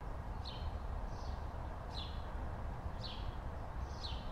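A bird chirping outdoors: short high chirps that each slide down in pitch, about one a second, over a steady low rumble.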